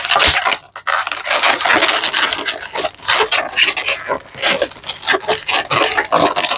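Inflated latex modelling balloons rubbing and scraping against each other and against the hands as one is twisted and worked into the layers. This makes an irregular, continuous run of rubs and squeaks, with one sharper crack near the start.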